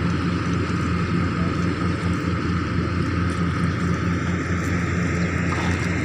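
An engine running steadily at a constant pitch, an even low hum that does not change.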